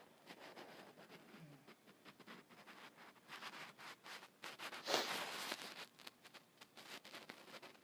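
Faint snoring of a sleeping woman: one noisy breath swells to a peak about five seconds in, over scattered small clicks and rustles.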